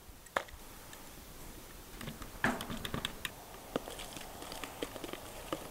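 Metal tongs clicking and scraping against a bowl as chicken wings are tossed in buffalo sauce: light, irregular taps, with a louder clatter about two and a half seconds in.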